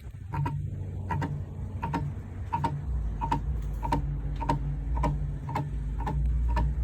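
Rooftop RV air conditioner, switched off, with its fan being turned by high wind: a regular ticking, about three clicks every two seconds, over a low rumble.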